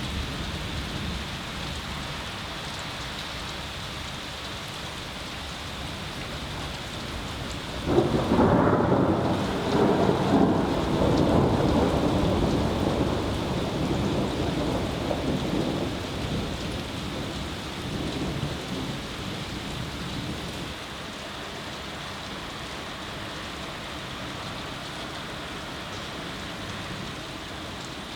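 Steady rain falling, with a clap of thunder about eight seconds in: a sudden crack followed by rumbling that dies away over roughly the next ten seconds.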